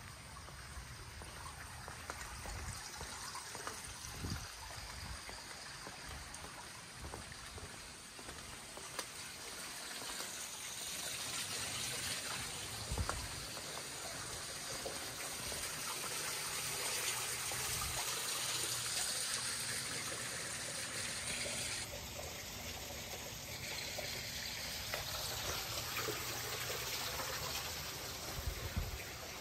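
Water trickling steadily from a stone-column garden fountain, with a few soft low thumps.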